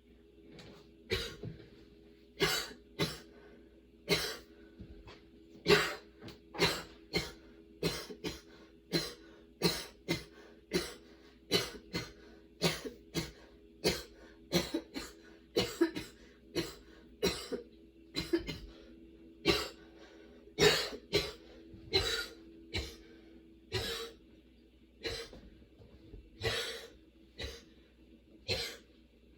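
A woman coughing in a long, unbroken fit: short coughs about one to two a second, often in quick pairs, with no pause between them.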